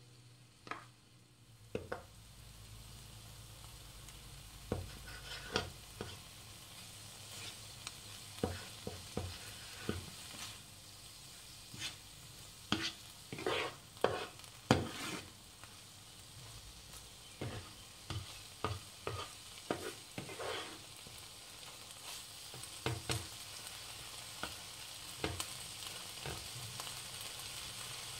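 Spinach and sweet corn sizzling in a non-stick frying pan while a spatula stirs them, scraping and knocking against the pan in irregular clusters. The sizzle grows louder about two seconds in.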